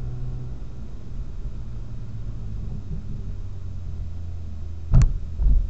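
BMW M240i's turbocharged straight-six running steadily at low revs, heard from inside the car. Two loud thumps come about five seconds in, half a second apart.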